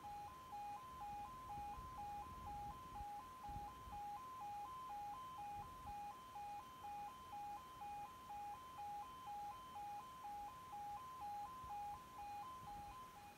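Level crossing audible warning alarm sounding its two-tone yodel, switching between a lower and a higher note about twice a second while the barriers are down for an approaching train.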